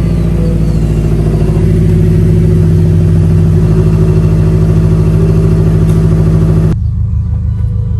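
Subaru WRX STI's turbocharged flat-four engine running steadily; the sound cuts off abruptly near the end.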